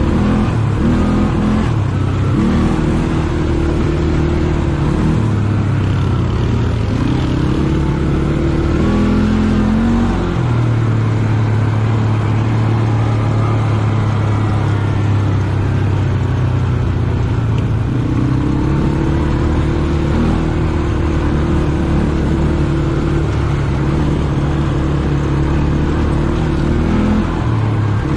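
ATV engine running under way, its pitch shifting up and down with the throttle through the first third, holding steady for several seconds in the middle, then rising and falling again.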